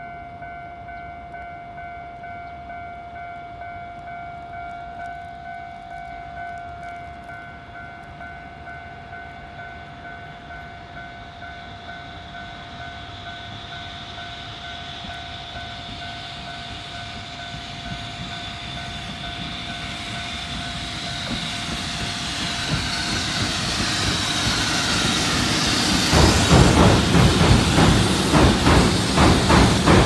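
Level-crossing alarm ringing with a steady electronic bell tone while a freight train hauled by an EH200 electric locomotive approaches, its rail hiss growing louder. In the last few seconds the train reaches the crossing with a loud, rhythmic clatter of wheels over the rail joints.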